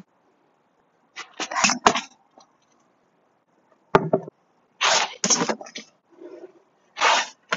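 Cane training against traffic cones: short breathy bursts of effort and swishing from the cane swings, with one sharp knock about four seconds in as the cane strikes.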